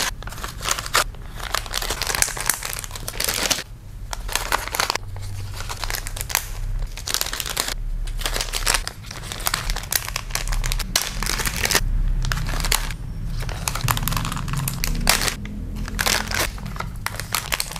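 Plastic packing bags crinkling and rustling as scrunchies are put into them and the bags handled, in uneven stretches with short pauses.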